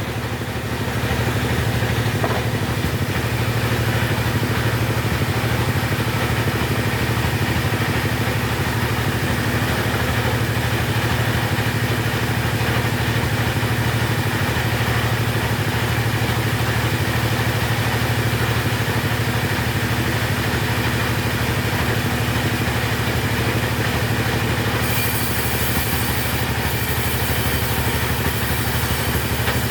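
Two-stroke chainsaw engine running steadily, with a brighter hiss added near the end.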